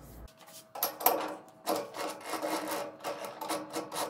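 Irregular metallic clicking and clattering as a three-jaw lathe chuck is loosened with its chuck key and a keyed drill chuck on a straight shank is pulled out of the jaws.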